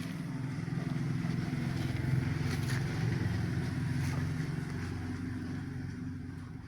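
An engine running steadily with a low, fast-pulsing hum, growing fainter over the last couple of seconds.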